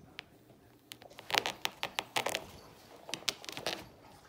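Cat scrabbling on a fabric-covered chair right at the microphone: a quick run of sharp taps, scratches and rustles from about a second in until near the end.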